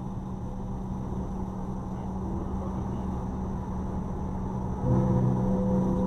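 Car cabin noise at motorway speed: a steady engine drone over tyre and road rumble. It grows louder, with a stronger engine hum, about five seconds in.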